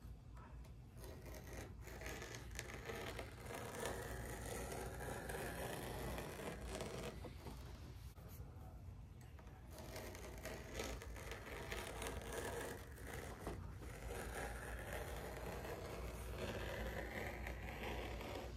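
Razor knife scoring through a leather hide: a steady scraping drawn in long strokes with short pauses between them, the light repeated passes made along a line before the blade breaks through.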